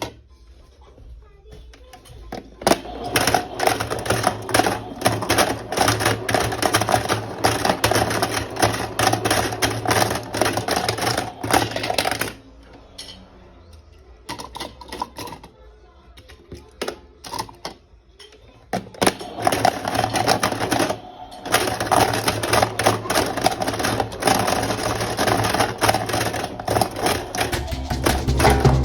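Battery-powered toy washing machine running, its motor humming while toy cars rattle and clatter quickly inside the spinning drum. It runs for about ten seconds, stops for several seconds, then starts again and runs for about ten more.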